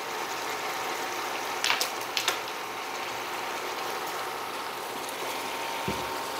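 Ground beef, onions and peppers sizzling steadily in a skillet. A few sharp clicks come about two seconds in, and a soft knock near the end.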